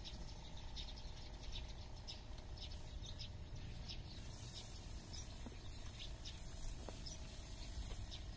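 Birds chirping in many short, repeated calls over a steady outdoor background of low rumble and high hiss.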